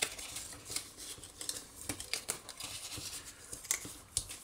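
Bone folder rubbing along the scored fold lines of a small cardstock box blank as its sides are folded up: paper scraping and rustling with a string of short, light clicks.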